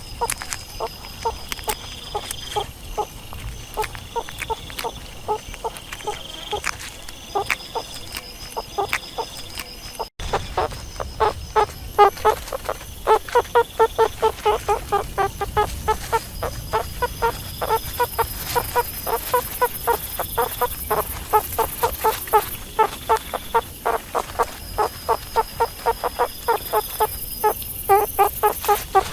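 Meerkats calling: short, pitched chirps repeated several times a second, sparser at first and coming thick and fast after a break about ten seconds in. A faint high steady buzz runs behind them.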